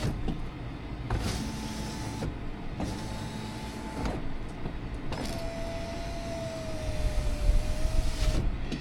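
A Jeep's electric power window motor drives the glass through a newly replaced window regulator. It makes two steady whining runs of about three seconds each, separated by a brief pause, with a click as each run starts and stops. The new regulator is working.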